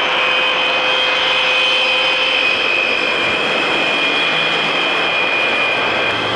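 Rolls-Royce Dart turboprop engines of a taxiing Vickers Viscount running with a steady high whine over a constant rush. A lower tone in the sound fades out about two and a half seconds in.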